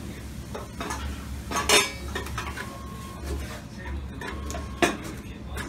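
Restaurant dishes and cutlery clinking over a low steady room hum, with two sharper clatters, about two seconds in and near the end.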